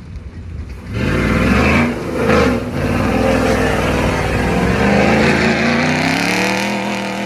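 Ford Raptor with long-tube headers and a Corsa Xtreme cat-back exhaust accelerating hard. The exhaust note jumps up about a second in and climbs, dips briefly, then holds a steady drone before easing off near the end.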